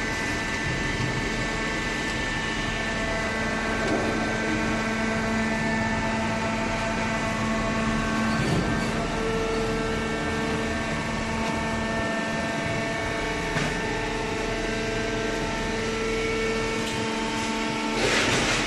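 Automatic cardboard baler running: a steady machine hum with several held tones that come and go, and a short louder burst of hiss near the end.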